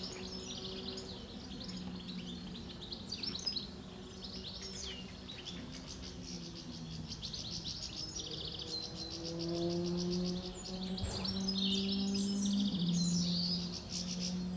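Songbirds singing: a busy chorus of chirps and twitters, with a rapid run of repeated trilling notes about two-thirds of the way in. A low steady hum sits beneath, stepping in pitch.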